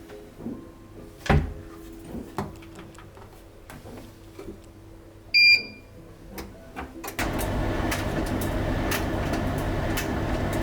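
An electric appliance beeps once, then starts and runs with a steady, loud whirr and low hum. Before this there are light clicks and knocks of handling over soft background music.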